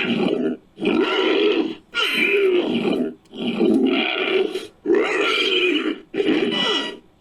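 Made-up dinosaur calls for a Psittacosaurus–Stygimoloch hybrid creature: a run of about six short, wavering grunting cries, each about a second long, with brief pauses between.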